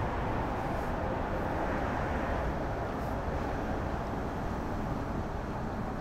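Steady rumble of city traffic noise, picked up by an action camera's built-in microphone, with no single distinct event standing out.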